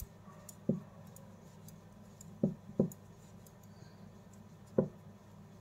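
Metal knitting needles tapping and clicking against each other while stitches are knitted: four light clicks, one about a second in, a close pair near the middle, and one near the end.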